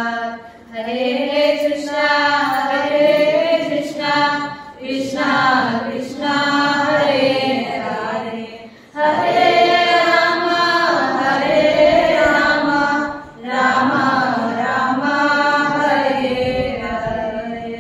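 Group of women chanting a devotional song together, in long held phrases with short breaths between them about every four seconds.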